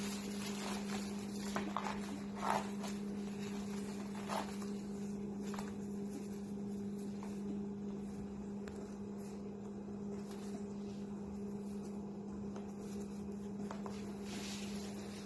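A steady low hum throughout, with a few brief short sounds in the first few seconds, the loudest about two and a half seconds in.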